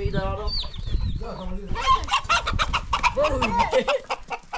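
A chicken squawking and clucking in alarm as it is chased, with a fast run of loud squawks from about two seconds in.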